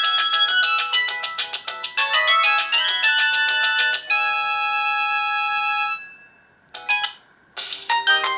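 Samsung GT-E2152 ringtones: a quick run of synthesized notes ends on a held chord that fades out about six seconds in. After a short blip and a pause, another ringtone melody starts near the end.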